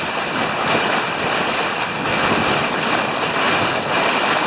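Steady rushing of water and wind from a boat under way, with no pitched engine note.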